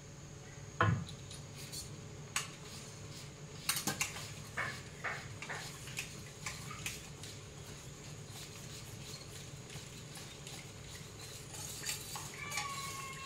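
Metal spatula clinking and scraping against a metal wok of simmering noodle gravy: a run of sharp knocks in the first half, thinning out later, over a steady low hum.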